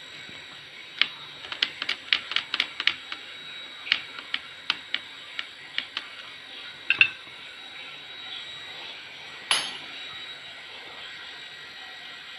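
Quick, irregular sharp clicks and taps of small hard parts being handled and fitted, plausibly the plastic door handle parts of an LG front-loading washing machine, followed a few seconds later by one louder knock, all over a steady hiss.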